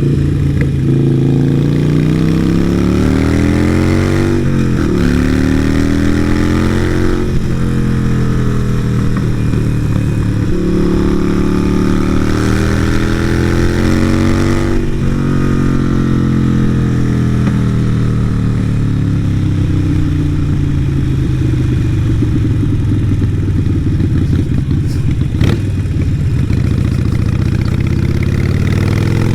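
Harley-Davidson Iron 883's air-cooled V-twin through a Vance & Hines exhaust, pulling up through the gears with a shift about five seconds in, pulling again, then winding down as the bike slows and settling to a low steady run near the end. A single sharp click sounds late on.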